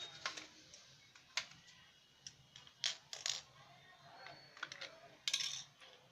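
Irregular light clicks and knocks of hard plastic as a toy RC crane truck is handled, about a dozen in all, with a short cluster just after five seconds in. No motor is heard running.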